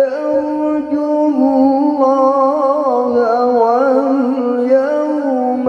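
A man's voice reciting the Qur'an in melodic tilawah style, drawing out long, ornamented notes whose pitch wavers and turns, with a short break about a second in. The reciter says his voice is hoarse and not healthy.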